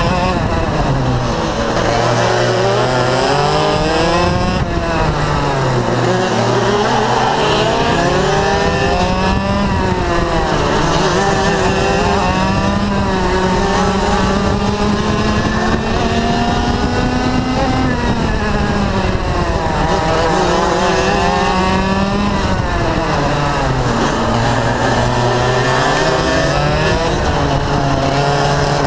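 IAME Leopard 125cc two-stroke kart engine at racing speed, its pitch dropping as it slows for each corner and climbing back as it accelerates out, again and again, with one long climb midway.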